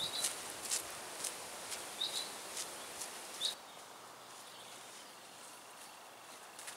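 Footsteps on a dirt woodland path, about two a second, with a few short high bird chirps. A little over three seconds in, the steps stop abruptly and only quiet woodland ambience is left.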